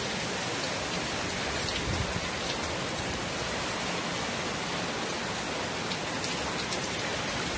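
Steady rain falling, with occasional sharper ticks of drops striking nearby surfaces.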